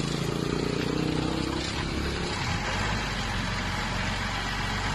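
A pickup truck's engine running as the truck drives slowly past on a wet road. The engine hum fades after about two seconds, leaving a steady hiss.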